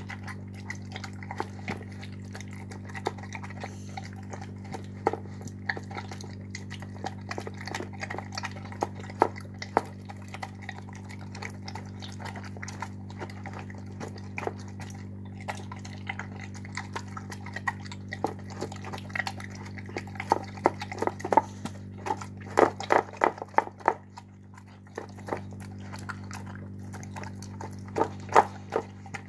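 Dog eating canned dog food in gravy mixed with pasta from a bowl: wet chewing and smacking clicks, coming thickest about two-thirds of the way through and again near the end, over a steady low hum.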